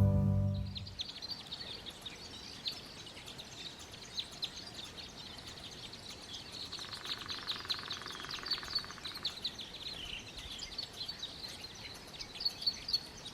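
Small songbirds chirping busily, many short overlapping calls with a brief buzzy trill partway through. A guitar tune fades out at the very start.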